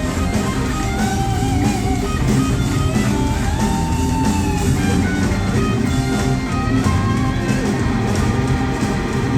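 Live rock band playing, with an electric guitar lead of bending, gliding notes over drums and bass.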